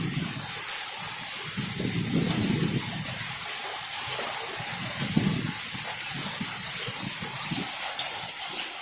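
Heavy rain hissing steadily while strong gusts of wind buffet the microphone in low rumbling surges that rise and fall every second or two.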